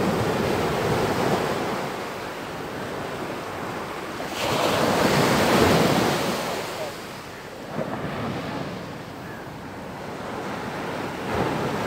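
Ocean surf breaking and washing up the shore in swells, the loudest wave crashing in about four seconds in, with wind buffeting the microphone.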